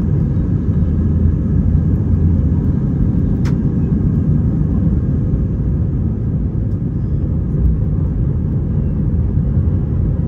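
Steady low rumble of engine and air noise inside an Airbus A320's passenger cabin, with a single sharp click about three and a half seconds in.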